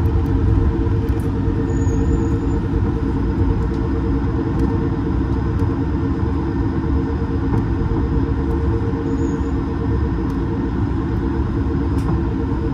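Airbus A220-300 cabin noise: its Pratt & Whitney PW1500G geared turbofan engines and the airflow make a steady loud rumble with a droning hum in it.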